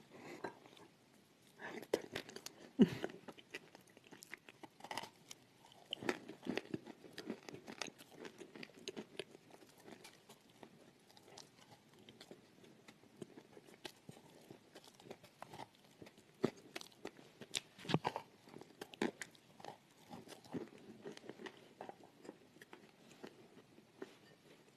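Close-miked chewing and crunching in the mouth of a thick, chalky 'cream' paste. The bites are irregular and crackly, with a few louder crunches around three seconds in and again near eighteen seconds.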